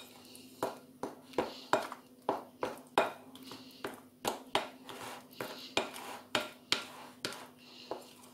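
A spatula stirring thick cake batter in a ceramic bowl, knocking and scraping against the bowl's side in a steady rhythm of about two to three strokes a second. A faint steady hum runs underneath.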